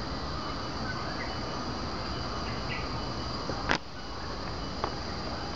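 Steady high-pitched trilling of crickets, with one sharp click about two-thirds of the way through.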